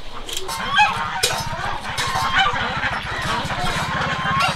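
A flock of domestic ducks and geese calling: many short, overlapping honks and quacks over a low, rapid pulsing drone.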